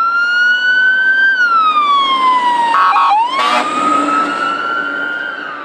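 Fire engine siren wailing in slow rising and falling sweeps, broken about three seconds in by a short blast of another tone. The wail then drops in pitch and fades as the truck passes.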